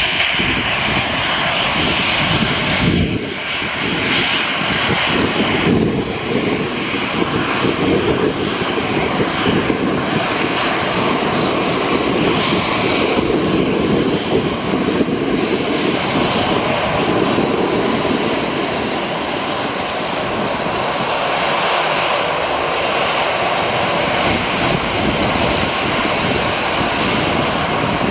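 Airbus A320 jet engines running at low thrust as the airliner taxis along the runway: a steady drone.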